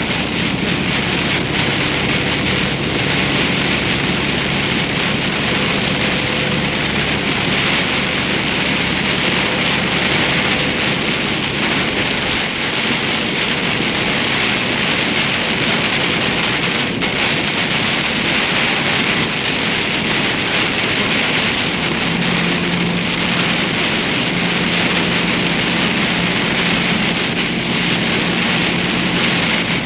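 Heavy rain pelting a moving vehicle, heard from inside the cab as a loud, steady hiss, with the vehicle's engine and road noise humming beneath.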